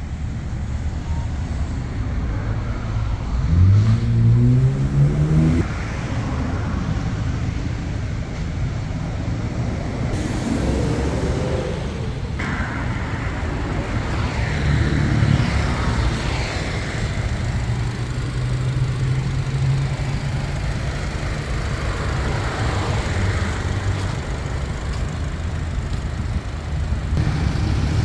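Road traffic and car engine noise. About four seconds in, an engine rises in pitch as it speeds up, and later a steady low engine hum is heard.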